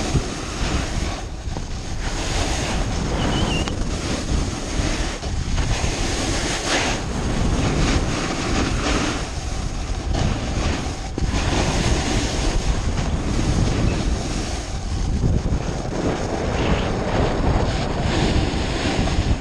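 Wind buffeting the microphone together with a snowboard's base and edges hissing and scraping over firm spring snow as it carves downhill, the noise swelling and easing with the turns.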